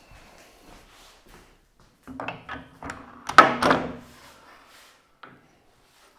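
A crosscut fence of aluminium extrusion and plywood is set down and shifted on a cast iron saw table. A cluster of knocks and clunks comes about two seconds in, the loudest about halfway through, followed by a single small click near the end.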